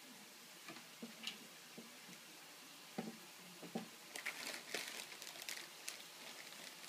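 A few light knocks, then a plastic food bag crinkling for about two seconds as a small child grabs and handles it.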